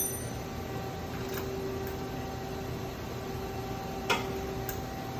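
Steady machine hum with a few light clicks or taps, the sharpest about four seconds in.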